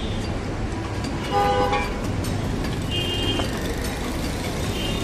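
Street traffic rumbling, with a vehicle horn honking once about a second and a half in, and a shorter, higher toot at about three seconds.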